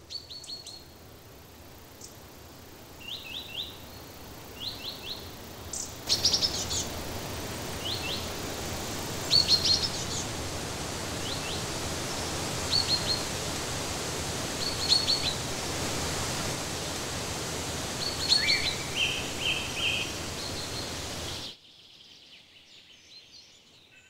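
Birds chirping in short, repeated high notes. About six seconds in, the steady rush of a waterfall comes in under them and cuts off suddenly near the end, leaving the faint birdsong.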